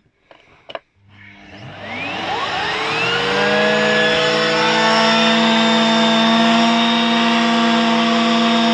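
Miele Complete S8 Cat & Dog 2200 W vacuum cleaner switched on: two clicks, then its motor spins up with a rising whine over about two seconds and settles into a steady, loud running.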